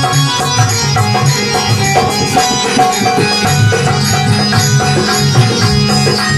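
Loud, continuous music with plucked strings over a steady, heavy drum beat.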